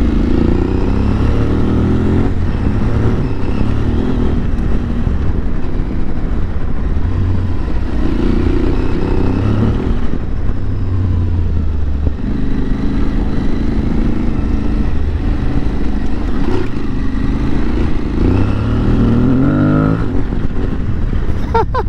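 Aprilia Tuareg 660's parallel-twin engine under way on a dirt road, its pitch rising and falling with throttle and gear changes as the bike gathers speed. Its pitch climbs steadily near the end.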